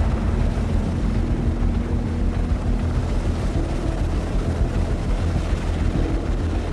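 Coastguard search-and-rescue helicopter heard steadily, a dense rotor and turbine rumble with a faint steady whine over it.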